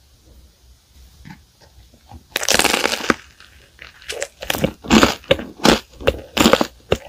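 A loud crunching bite into a flaky butter garlic twisted pastry about two and a half seconds in, followed by crisp crunching chews at roughly two to three a second.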